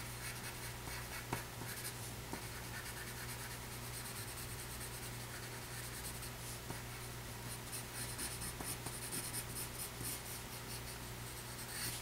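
Pencil lead scratching on sketch paper in short repeated sketching strokes, faint, over a steady low hum.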